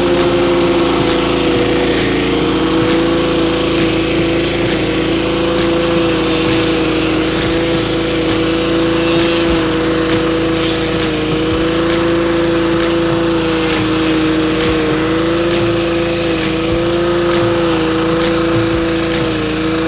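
Simpson PS4240H gas pressure washer's Honda GX390 engine running steadily under load, with the hiss of water jetting from a surface cleaner being swept over concrete.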